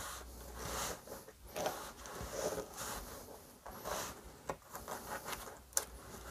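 Steel recoil spring of a chainsaw's pull starter being worked back, coil by coil, into its plastic housing by hand: faint, uneven scraping and sliding, with a few small sharp clicks.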